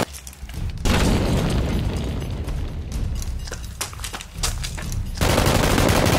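Rapid bursts of gunfire sound effects with heavy booms: many sharp shots in quick succession, as in a shootout.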